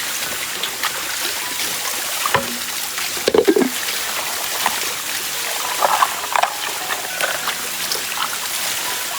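Stream water running steadily, with a few short splashes and knocks, the loudest cluster about three seconds in.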